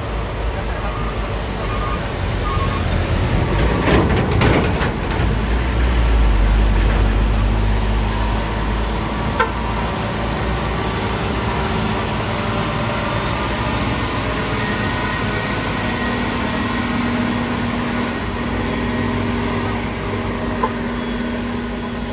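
UD Quester heavy truck's diesel engine running steadily under load on the climb, with a short rush of hissing noise about four seconds in.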